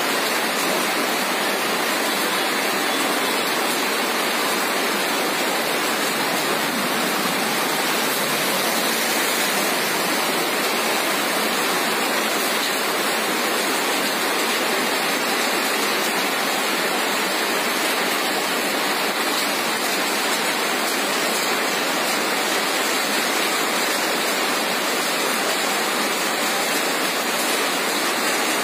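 Steady, unbroken rushing of water, loud and even throughout, with no thunderclaps or other distinct events.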